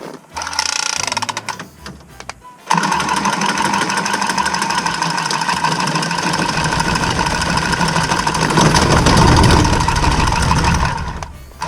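Milwaukee M12 cordless copper tubing cutter running for about eight seconds with a steady motor whine, cutting through copper pipe. The sound gets heavier near the end, then stops as the cut finishes.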